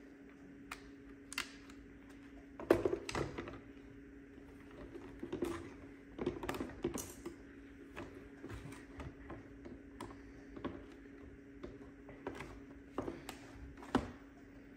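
Plastic parts of a Eufy RoboVac 11S being handled and pressed back together during reassembly: irregular clicks, knocks and rattles, loudest about three seconds in and again near the end, over a faint steady hum.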